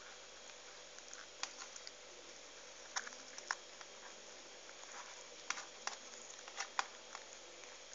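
Hands handling and pressing rice-stuffed cabbage leaf rolls into place, giving scattered soft crackles, small wet clicks and rustles at irregular intervals over a steady hiss.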